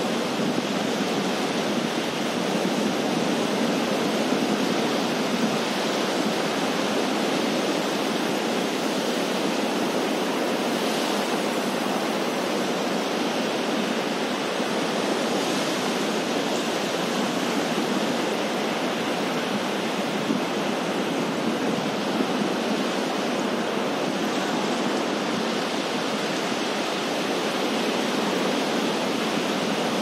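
Ocean surf breaking on a sandy beach: a steady, unbroken wash of waves.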